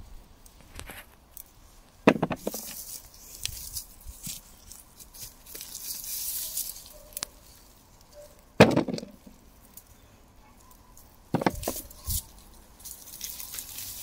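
Hands pulling up potato plants and handling the tubers: rustling foliage and soil, with four sharp knocks, the loudest about eight and a half seconds in.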